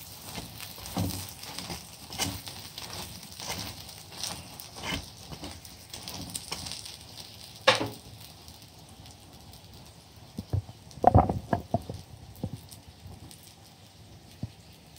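Aloo paratha frying in oil on a flat pan, sizzling and crackling, with the sizzle thinning out after about seven seconds. A sharp click just before the eight-second mark and a short run of knocks about three seconds later.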